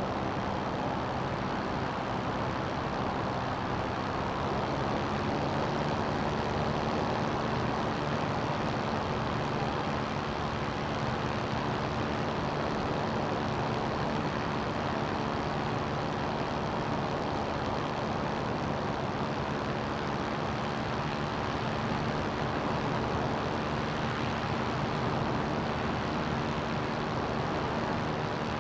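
CGS Hawk ultralight's engine running at a steady cruise in flight, a constant drone with a thick rush of air noise over it.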